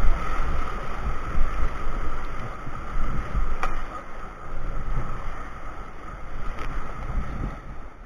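Whitewater rapids rushing around a raft, with wind buffeting the microphone as a heavy low rumble. A sharp knock about three and a half seconds in.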